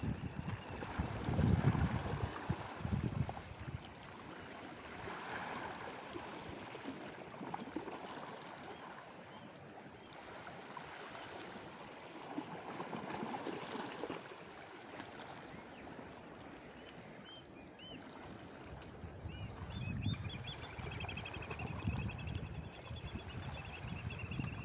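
Small waves washing and lapping against a rocky shore, swelling and easing every few seconds, with low rumbling gusts of wind on the microphone near the start and towards the end.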